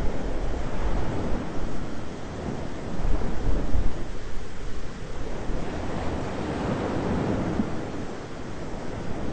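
Thunder rumbling low and long over a steady wash of rain and wind, the rumble swelling again about three seconds in.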